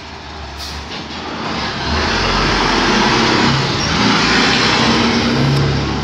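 A heavy motor vehicle's engine running, with a low rumble and a steady hiss that grow louder about two seconds in and stay loud.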